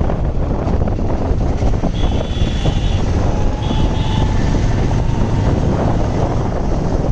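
Heavy wind rush buffeting the microphone while riding a Bajaj Avenger Cruise 220 motorcycle on the highway, with road and engine noise underneath. A high beep sounds about two seconds in and two shorter ones follow about a second later.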